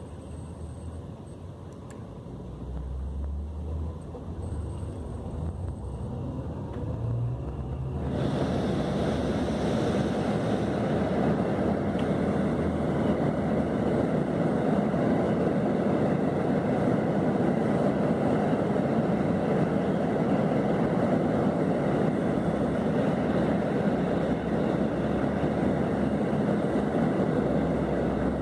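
Scania K400 coach engine running with a low hum, then about eight seconds in the sound turns suddenly much louder and noisier and stays steady.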